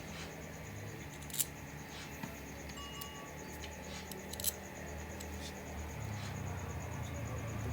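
A few sharp, light metallic clicks, the clearest about a second and a half in and again around four and a half seconds, over a low steady hum.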